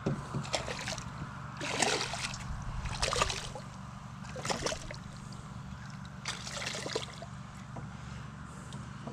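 Hooked speckled sea trout splashing at the water's surface several times while being played in on a fishing line.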